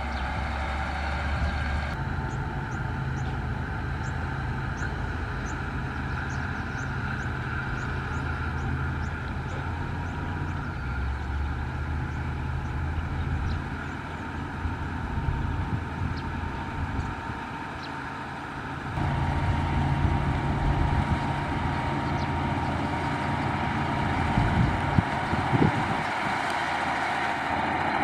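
Caterpillar 140H motor grader's diesel engine running steadily as it grades gravel. The sound shifts abruptly about two seconds in, dips quieter for a few seconds past the middle, and jumps louder again about two-thirds of the way through.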